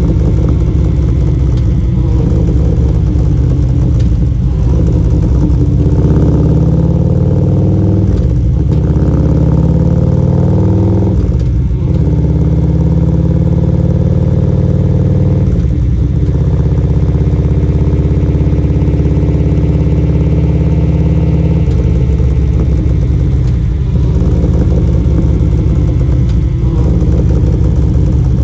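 2016 Harley-Davidson CVO Street Glide's Twin Cam 110 V-twin running through Vance & Hines Power Duals headers and CFR slip-on mufflers, idling and revved up twice between about six and eleven seconds in, with a few short throttle blips later.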